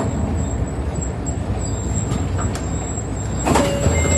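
Inside a city bus moving slowly: the engine runs with a steady low hum under a thin high whine. There are a few light clicks, and a short hiss comes about three and a half seconds in.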